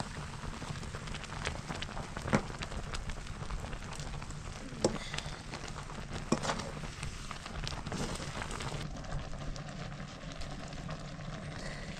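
Wood cooking fire crackling steadily, with three sharper cracks about two, five and six seconds in.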